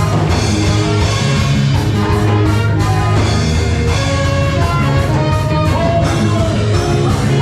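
Live ska band playing an instrumental: a horn section carries the melody over electric guitar, bass guitar and drum kit.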